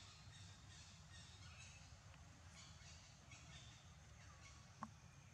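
Faint woodland ambience: distant birds calling in short chirps and falling notes over a low steady rumble, with one sharp click near the end.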